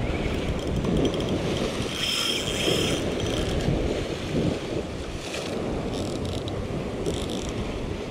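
Sea waves surging and washing against a rocky shoreline ledge, with wind buffeting the microphone. A brief high mechanical whirr rises over it about two seconds in.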